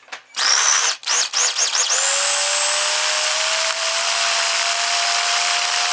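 Small electric food processor pulsed in several short bursts, then run continuously with its motor tone slowly rising in pitch, chopping avocado, yogurt and cilantro into a creamy sauce.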